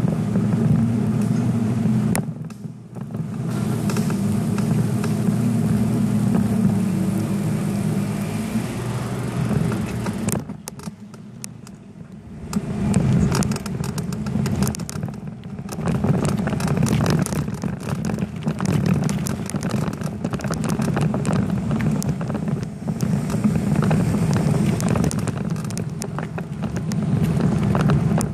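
Riding noise picked up by a camera mounted on a bicycle: a steady rumble, with many quick rattles and clicks from about halfway on as the bike goes over rough ground. The rumble drops away briefly a few times.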